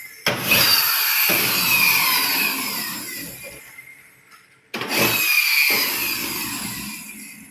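Toy train rattling and whirring along a plastic track, starting suddenly twice, each run fading away over about three seconds.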